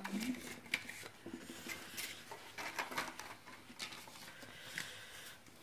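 Quiet eating-table sounds: faint scattered clicks and rustles, with a paper tissue being used to wipe the mouth.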